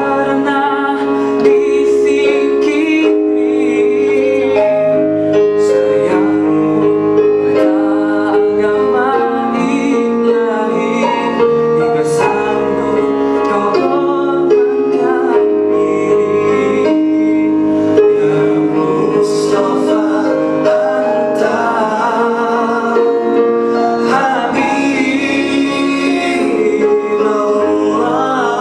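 A man singing an Islamic devotional song (nasheed) live, in long held notes with vibrato, over a steady keyboard accompaniment.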